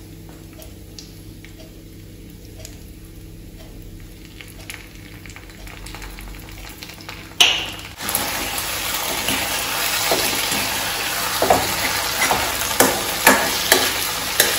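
Chicken pieces in sauce frying in a steel kadai, with a faint sizzle at first. After a sharp click about seven seconds in, the sizzle turns loud, and a metal slotted spoon clacks and scrapes against the pan several times as the chicken is stirred.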